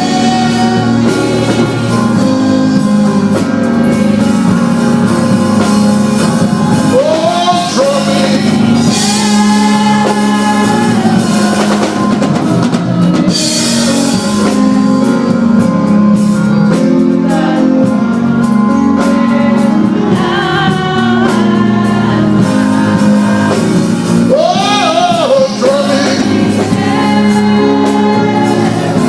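Gospel singing with band accompaniment: a singing voice holding long wavering notes over steady chords and drums.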